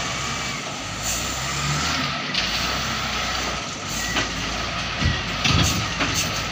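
TCM wheel loader's diesel engine running as it tips a bucket of dirt and debris into a steel dump-truck bed, with a few heavy thuds about five seconds in as the load drops.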